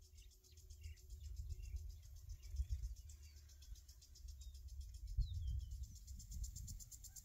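Faint outdoor ambience: an uneven low rumble of wind, a fast, steady insect trill, and a few scattered bird chirps, one of them a falling chirp about five seconds in.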